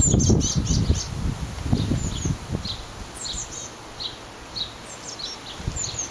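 Blue tit chicks giving short, high chirping calls, repeated a couple of times a second. Wind buffets the microphone under them, gusting loudest in the first second.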